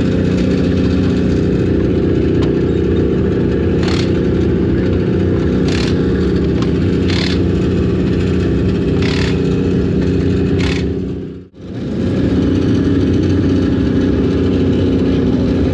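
Several race-car engines running loudly and steadily on the track, with a car passing by with a short whoosh every second or two. The sound cuts out for an instant about eleven seconds in.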